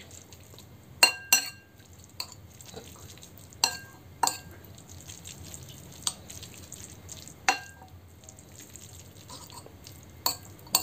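Metal spoon clinking against a ceramic bowl of noodles: about nine sharp, ringing clinks at irregular intervals.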